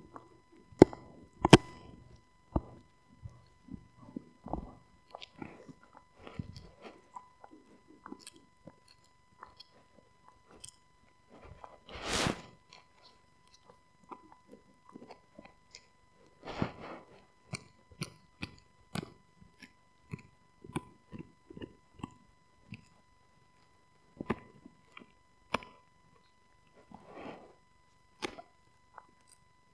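Husky chewing a rawhide-style bone: irregular crunching and cracking bites, the loudest chew about twelve seconds in.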